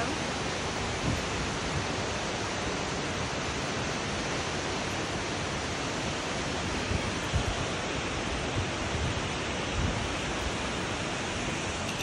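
Waterfall pouring over a rock ledge: a steady, even rush of falling water, with a few soft low bumps.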